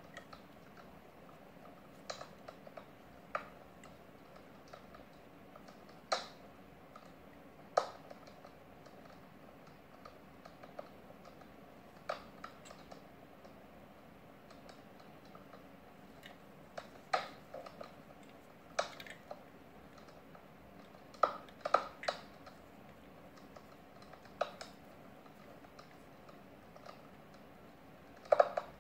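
Scattered light clicks and taps of a small diecast model car being handled in nitrile-gloved fingers, coming irregularly every second or few seconds, over a faint steady hum.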